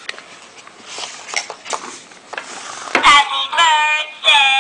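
Paper rustling as a card is handled, then about three seconds in a musical greeting card's sound chip starts playing a tinny electronic birthday song through its tiny speaker.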